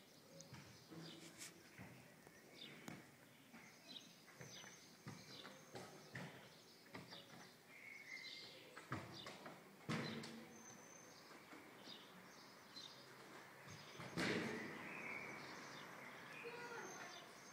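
Quiet ambience with faint, scattered bird chirps and soft clicks, and two louder knocks about ten and fourteen seconds in.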